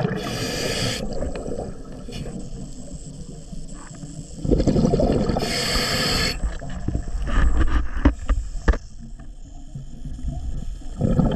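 Scuba diver breathing through a regulator: a hiss on the inhale and a gush of exhaled bubbles, two breaths about five and a half seconds apart, with a few sharp clicks in between.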